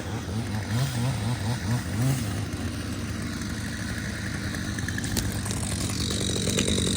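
Chainsaw engine running steadily at idle, picking up and getting louder near the end.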